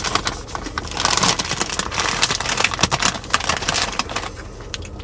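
Crunching of caramel and cheddar popcorn being chewed close to the microphone: a dense run of crackly snaps that starts about a second in.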